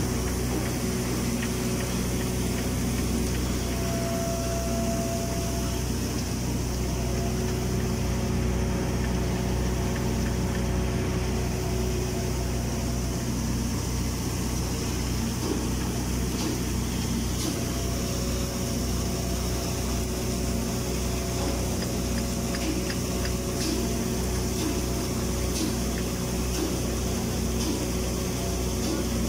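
Automatic girth welding machine running while it lays a submerged-arc capping bead on a tank's horizontal seam: a steady machine hum with several fixed tones and a constant noise, unbroken throughout.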